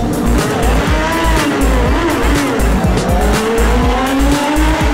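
Sport motorcycle engines revving and pulling away from a standing start, their pitch rising and falling, mixed with background music with a pulsing bass beat.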